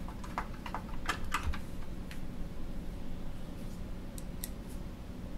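Irregular light clicks and taps of plastic panel parts and screws being handled and fitted together, most of them in the first two seconds and a few sharper ticks about four seconds in, over a faint steady hum.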